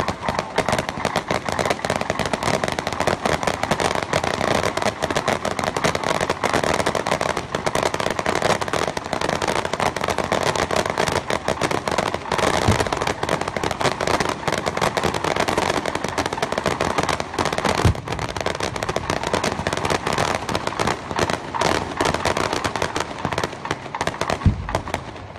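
Aerial fireworks going off in a dense, continuous run of rapid crackling pops, with a few deeper thuds about 13, 18 and 24 seconds in.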